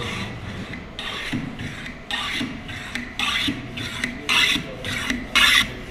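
Metal bench plane taking repeated passes along the edge of a softwood board, each stroke a short shaving hiss, about one a second, removing small bits of waste to form a chamfer.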